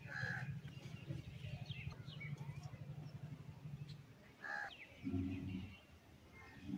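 Faint bird calls, a few short harsh calls and thin chirps, over a steady low hum that stops about four seconds in. A short low call comes about five seconds in.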